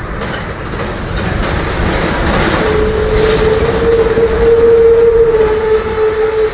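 Rear differential of a Mercedes-Benz OF-1721 bus droning: a steady whine comes in a little under three seconds in, rises slightly in pitch and is loudest a couple of seconds later, over the bus's running noise. The drone at low engine revs is the sign of a faulty differential.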